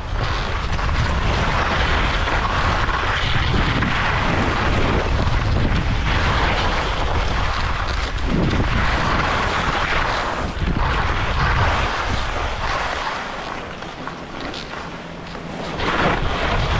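Skis sliding and scraping over packed snow, with wind rumbling on the microphone of a moving skier. It goes quieter for a couple of seconds near the end, then picks up again.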